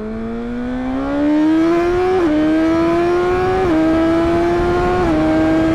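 BMW S1000XR inline-four through an Akrapovic full titanium exhaust with the dB-eater fitted, accelerating hard. The engine note climbs steadily, drops with a quick upshift three times, then holds steady near the end.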